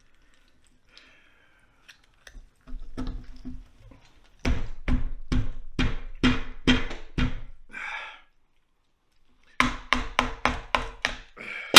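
A long kitchen knife is stabbed point-down again and again into a roasted lamb head's skull on a cutting board. There is a run of about eight thunks, roughly two or three a second, then a pause and a quicker run of blows near the end.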